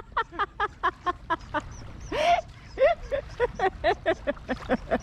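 Ducks calling in a rapid series of short quacks, about four a second, with one longer, harsher call about two seconds in.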